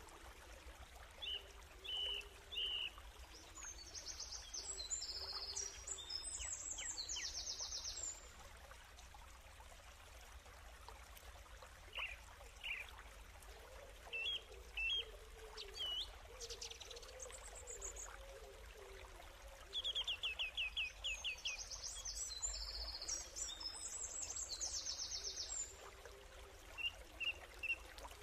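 Birds singing over steadily running stream water. There are short chirps throughout, and two spells of rapid high trilling, about four seconds in and again around twenty seconds.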